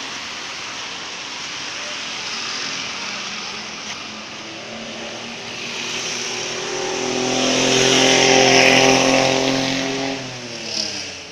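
A bus passing close by. Its noise swells to a peak about eight to nine seconds in, with a steady droning note that drops in pitch as it goes past and fades.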